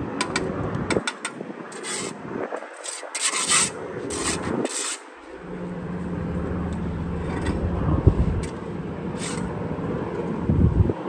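Steel mason's trowel scraping mortar against concrete block and a mortar pan in a series of short strokes, the strongest in the first half. From about halfway through, a steady low hum runs underneath.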